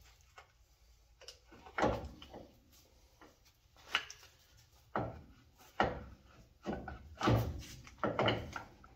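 Irregular metal clunks and knocks, about seven of them, as the CV joint of an RCV axle shaft is wrestled by hand into a GM Dana 44 steering knuckle.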